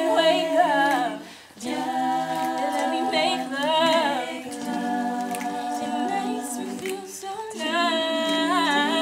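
All-female a cappella group singing in harmony: several voices hold chords while a higher lead voice wavers and slides above them. The singing breaks off briefly about a second and a half in, then resumes.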